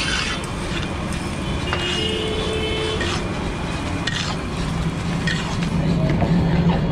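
Metal spatulas clinking and scraping against a huge 50 kg tawa as a heap of food is stirred, in irregular knocks and scrapes. Under it runs a steady low street hum that grows louder near the end.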